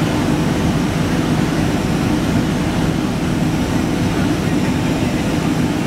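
Boeing 767-200ER cabin noise during the climb after takeoff: the jet engines and the air rushing past make a steady, even low rumble with a faint constant hum.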